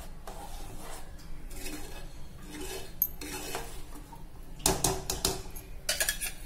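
Steel spoon stirring and scraping through thick curry in a metal cooking pot, with a few louder metal clinks about two-thirds of the way in and again near the end as a steel vessel is handled against the pot.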